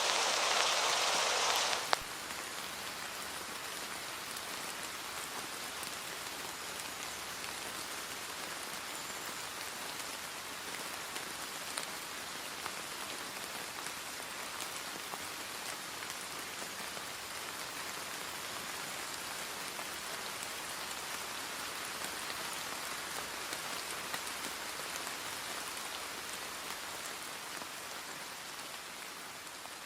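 Steady rain falling, an even hiss without any rhythm or tone; it is louder for the first two seconds, then holds level and slowly fades out near the end.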